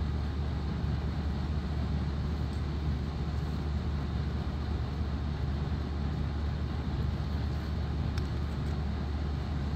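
Steady low rumble of background noise with a light hiss over it, and a faint click or two about eight seconds in.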